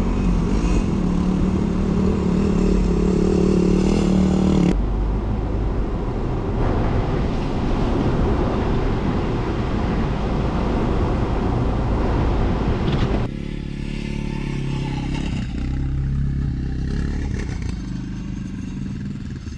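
GMC Canyon pickup truck driving off-road, its engine running steadily under load with tyre and body noise. The sound changes suddenly about five seconds in and again about thirteen seconds in.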